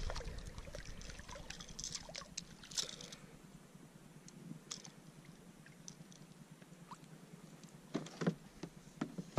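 Water trickling and dripping around a kayak, with scattered light knocks and splashes as a small striped bass is brought aboard by hand. The knocks cluster about two seconds in and again near the end.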